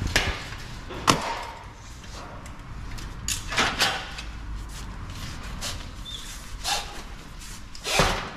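Several sharp knocks and clatters at irregular times, a loud one about a second in, a quick cluster of three in the middle and another loud one near the end, over a steady low background hum.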